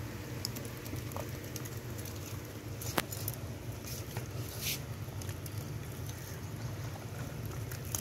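Hands kneading wet soil in a plastic tub of water, squelching and lightly splashing the mud, with a sharp click about three seconds in and a short splash near the middle, over a steady low hum.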